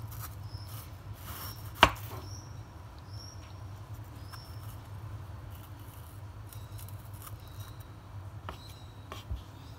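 Kitchen knife cutting into a tomato on a wooden cutting board, with faint short squeaks and one sharp knock about two seconds in, then two lighter knocks near the end, over a steady low hum.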